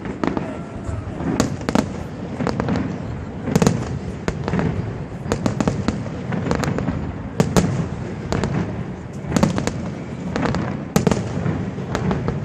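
Fireworks salute: aerial shells bursting in quick, irregular succession, sharp bangs over a continuous low rumble of further explosions.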